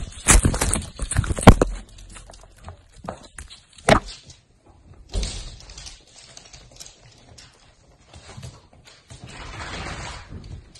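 A quick run of loud knocks and thumps in the first two seconds as a dog bumps against the phone, then one more sharp knock about four seconds in.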